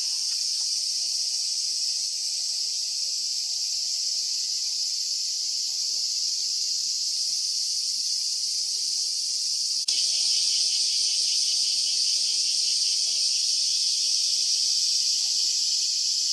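Chorus of cicadas giving a steady, dense, shrill buzz. About ten seconds in it jumps abruptly and becomes slightly louder with a faint pulsing texture.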